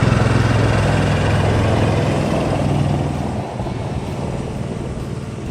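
An engine running steadily, growing fainter through the second half.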